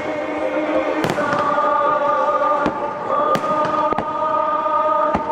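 Fireworks bursting with several sharp bangs over musical accompaniment that holds long sustained notes.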